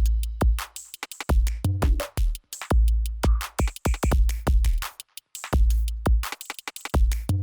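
Electronic background music with a drum-machine beat: deep kick drums with long booming bass tails and fast, sharp clicking percussion.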